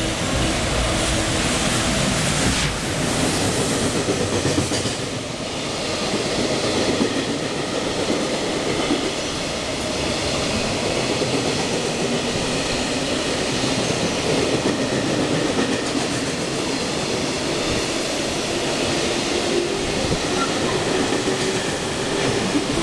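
JR Freight train hauled by an EF510 electric locomotive passing through the station at speed, followed by a long string of container wagons rushing by with continuous wheel-on-rail noise.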